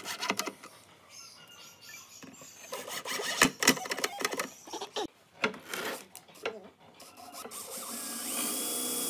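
Cordless drill-driver driving screws through small steel hinges into pine boards, in short runs mixed with clicks and knocks of handling the tool and wood. Near the end the drill runs steadily for about two seconds.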